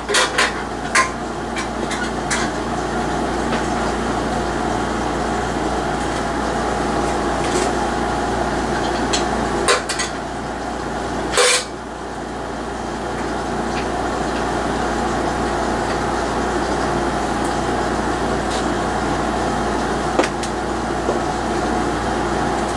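A few metallic clinks and knocks from handling a metal light fixture and its hanger, the loudest about ten and eleven and a half seconds in, over a steady fan-like whir with a hum.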